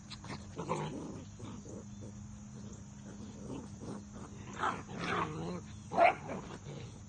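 Two Labrador retriever mix puppies growling and yapping as they play-fight. The loudest sound is a short, sharp bark about six seconds in.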